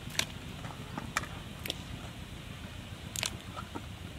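Chopped carrot pieces being tipped off a plastic plate into a pot of steaming water: a few short, sharp clicks and plops, with a small cluster of them about three seconds in, over a steady low rumble.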